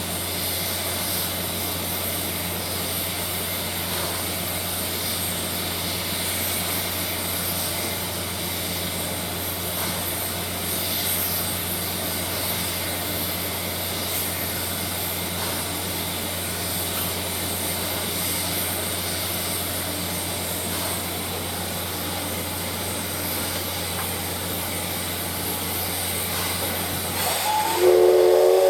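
Steam locomotives of a double-headed train standing and hissing steadily, with a low steady hum under the hiss. About a second before the end a locomotive's steam whistle starts to blow, several tones sounding together and louder than the hiss.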